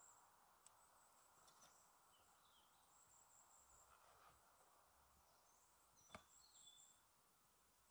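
Near silence: faint ambience with faint, high-pitched chirps and trills coming and going, and a single short click about six seconds in.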